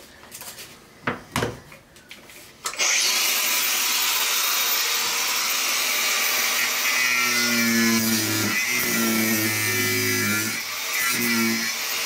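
A few handling knocks, then about three seconds in a Makita angle grinder starts up and runs with a high whine, its disc cutting off old screws in a wooden wall. Deeper humming tones come and go as the disc bites into the screws.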